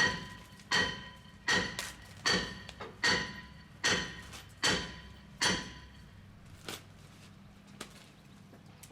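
A hammer striking metal, about eight evenly spaced blows a little under a second apart, each ringing briefly, then stopping about six seconds in.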